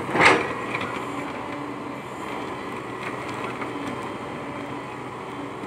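Komatsu PC120-5 excavator's diesel engine running steadily under load with a thin high tone over the drone, as the bucket digs out a palm stump's roots. A brief loud burst sounds just after the start.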